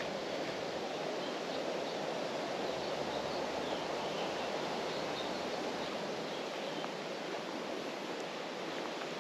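Steady rush of wind through ironwood trees, an even hiss with no breaks.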